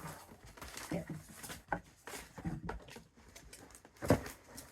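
Cardboard book box and packaging being handled: scattered rustling and light tapping, with a single louder knock about four seconds in.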